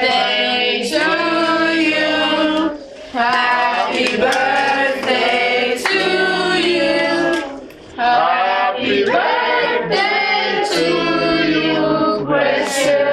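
A group of people singing a birthday song together, in phrases of a few seconds with short breaths between them about three and eight seconds in.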